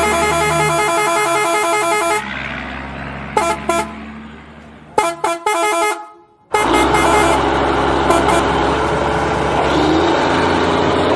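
Truck horn sound effect honking in quick repeated blasts for about two seconds, then two more short bursts of honks. After a brief cut to silence about six seconds in, a steady vehicle engine sound runs to the end.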